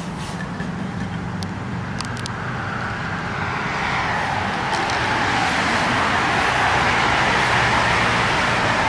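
Street traffic noise: a low steady engine hum, with a broad rushing noise that grows louder from about halfway through, as of a vehicle drawing near, and a few light clicks early on.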